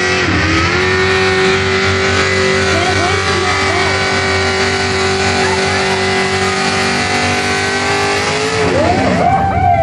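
Mini pulling tractor's engine running hard at steady high revs while it drags a weight sled, rear tyres spinning in the dirt. Near the end the engine's pitch drops and swings up and down.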